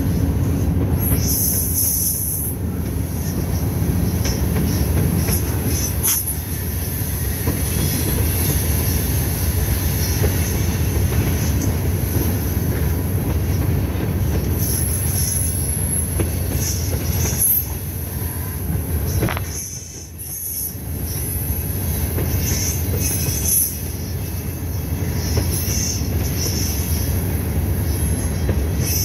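Canadian Pacific manifest freight train's hopper and tank cars rolling past: a steady rumble of steel wheels on rail, with short high-pitched wheel squeals now and then.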